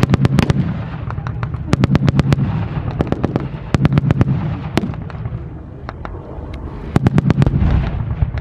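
Blank gunfire in a mock WWII firefight: several short bursts of automatic machine-gun fire with scattered single rifle shots between them.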